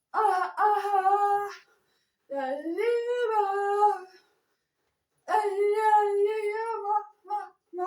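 A high voice singing wordless, drawn-out notes, in three long phrases with wavering pitch, one sliding upward, then a few short notes near the end.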